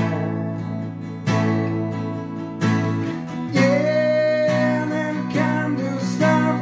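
Twelve-string acoustic guitar strummed in slow chords, a fresh strum every second or so. A man's voice sings over it, holding one long note about halfway through.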